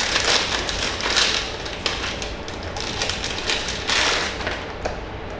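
Crinkling and rustling of blind-box packaging being handled and torn open, in irregular bursts, loudest in the first second or so and again about four seconds in.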